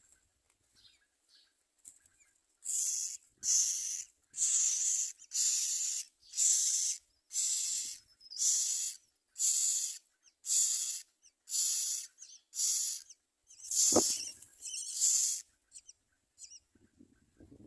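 Common myna nestlings giving harsh, rasping begging calls, about one hissing call a second in a long run, with a single sharp knock about three-quarters of the way through.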